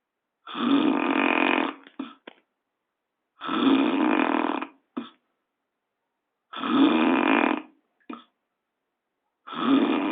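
A person snoring heavily: four long snores about three seconds apart, each followed by a brief short sound.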